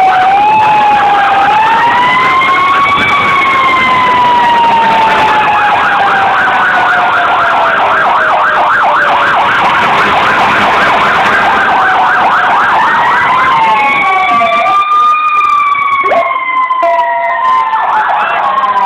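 Fire engine sirens wailing in slow rising and falling sweeps, with more than one siren sounding together. In the middle they switch for several seconds to a fast yelp, about three to four warbles a second, then go back to the slow wail.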